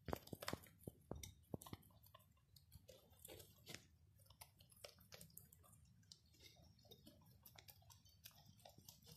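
Several young rabbits chewing and crunching chopped leafy greens: quick, faint crunches and clicks. They are louder and more frequent in the first couple of seconds, then continue softly.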